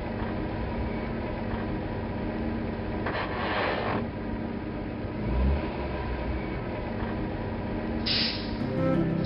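Cartoon sound effect of a toy truck's engine running steadily as the tow truck drives up and hooks the overturned fire truck, with a hissing whoosh about three seconds in, a low thud past halfway and another whoosh near the end.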